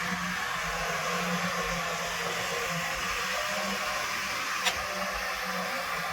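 Escorts Digmax backhoe loader's diesel engine running steadily, with a pulsing low hum and one sharp click about four and a half seconds in.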